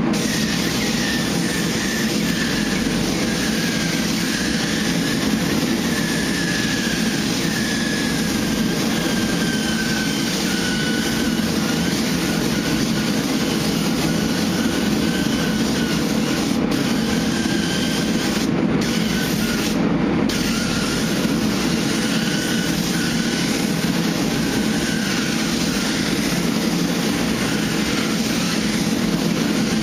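Air paint spray gun hissing steadily as base coat is sprayed onto the truck's panel, over a constant hum, with the high hiss briefly cutting out twice about two-thirds of the way through as the trigger is let go.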